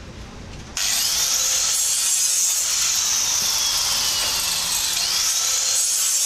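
A power tool switches on abruptly about a second in and runs steadily with a loud hiss and a thin whine that slowly drops in pitch, then rises again near the end.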